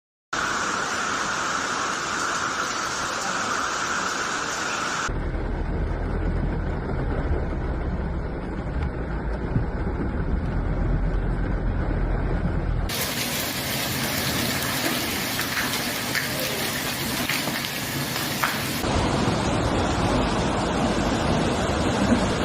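Heavy downpour and rushing floodwater, in several clips that cut abruptly to one another about 5, 13 and 19 seconds in. A strong low rumble runs through the middle clip.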